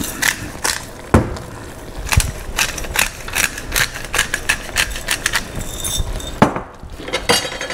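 Metal utensil clicking and scraping against a frying pan as beef fajita meat is stirred, a string of irregular sharp clicks several times a second.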